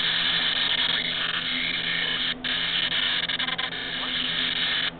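Garbled audio from a digital (ATSC) TV broadcast breaking up: a harsh, steady, buzzing noise, cutting out briefly about two and a half seconds in and again near the end.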